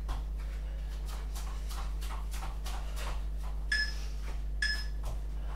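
Rapid, heavy breathing and quick light strokes of a person doing fast runs and burpees on an exercise mat, about three strokes a second. Two short high squeaks come a little after halfway.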